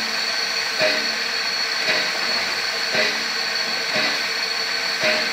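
USATC S160 steam locomotive standing with steam hissing steadily, under a rhythmic beat that comes about once a second.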